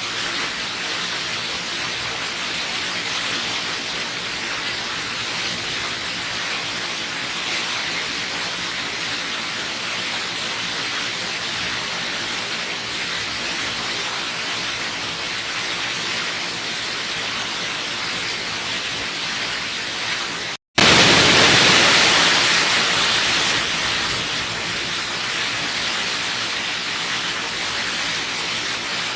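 Waterfall: a steady rush of falling water. About two-thirds of the way through it drops out for an instant, then comes back louder and eases down over a few seconds.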